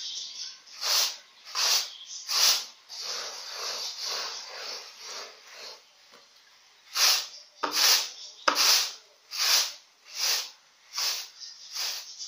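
Pounded rice swishing and rattling in a plastic winnowing tray as it is tossed and shaken to separate out the bran. It comes in rhythmic swishes about one a second, with a few seconds of steady swishing and a short lull partway through, and a couple of sharp clicks a little after the middle.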